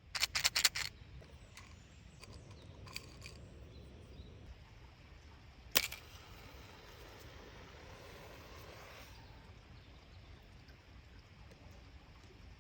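A quick run of about five sharp clicks in the first second, a couple of faint clicks about three seconds in, and one sharp click near the middle, over a low steady background.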